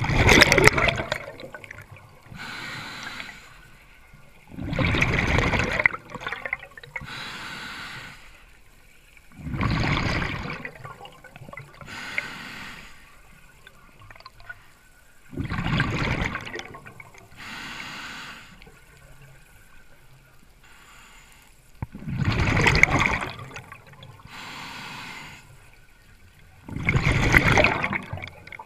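Scuba diver breathing underwater through a regulator: six loud rushes of exhaled bubbles about every five to six seconds, each followed by a quieter hiss of the next breath drawn in.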